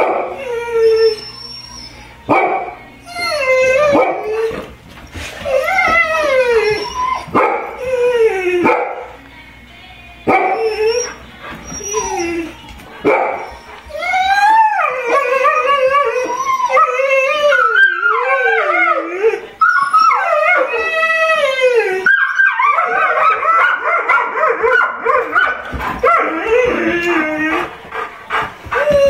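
A group of dogs, golden retrievers and an Irish setter, howling together like coyotes, with barks mixed in. The long rising and falling howls come separately at first, then overlap into a dense chorus from about halfway through.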